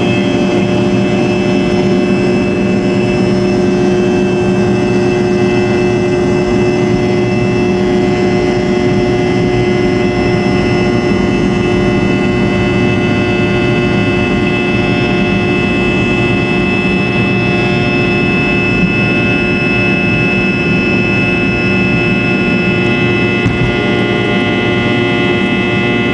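Fokker 70 airliner's Rolls-Royce Tay turbofan engines running at take-off power: a loud, steady jet noise carrying several steady whining tones.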